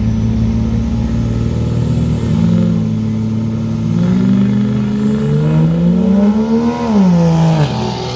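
Turbodiesel pickup truck engines running loud at the start line, then accelerating hard in a drag race: the engine pitch climbs for several seconds with a high whistle rising alongside, then drops sharply near the end.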